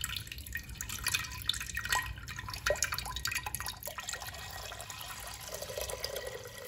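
Liquid pouring into a clay pot: tamarind juice splashing and dripping in, then a steadier pour of water from a glass jug near the end.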